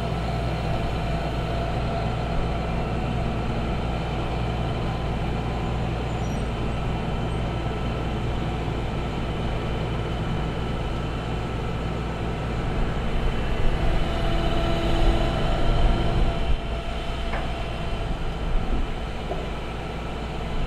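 Diesel engine of a truck-mounted crane running steadily with a low hum while it holds a locomotive tender on its slings. The sound grows louder and more uneven about twelve seconds in, then settles.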